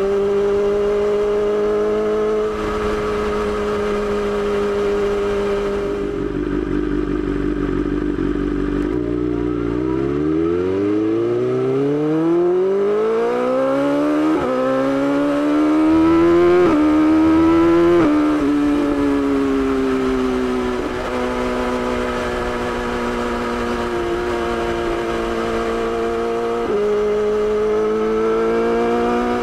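BMW S1000XR's inline-four engine running on the road. Its note holds steady, drops away about six seconds in, then rises in pitch under acceleration with short drops at the upshifts, eases off again and settles into a steady cruise.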